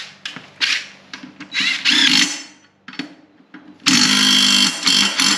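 A power tool running the bolt that holds a mower blade onto the deck spindle. It goes in several short bursts, one speeding up, then one longer run of about a second and a half near the end.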